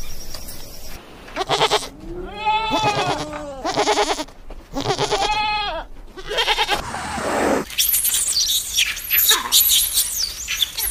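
Sheep bleating: about four long, wavering bleats, some with a trembling quaver. About three seconds before the end, these give way to a run of rapid high-pitched squeals and chirps from ring-tailed lemurs.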